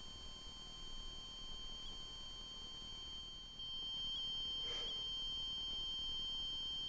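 Electronic device giving a steady high-pitched tone, like an alarm beep held on, which gets louder about three and a half seconds in. A short scraping or rustling sound comes about five seconds in.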